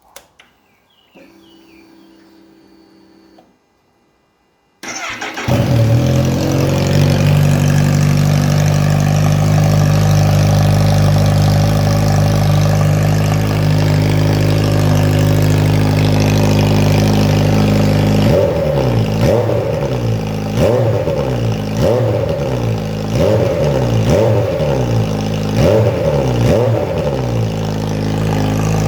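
Kawasaki H2 SX SE's supercharged inline-four, breathing through a slash-cut shorty slip-on exhaust. It is faint for the first few seconds, then starts about five seconds in and idles steadily. Later it is blipped in a string of short revs, about one a second, before settling back to idle.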